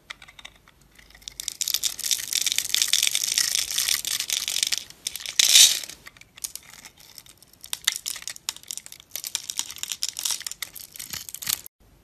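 Snap-off utility knife blade cutting through a grid-scored bar of dry soap, the small cubes crackling and crunching off in rapid clicks, with the loudest crunch about five and a half seconds in. The crackling thins out in the second half and stops abruptly near the end.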